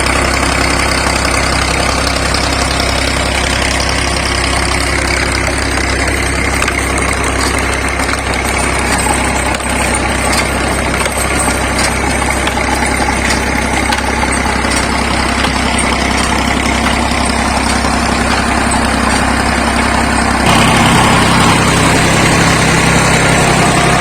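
Used tractor diesel engine running steadily, growing louder and heavier about twenty seconds in.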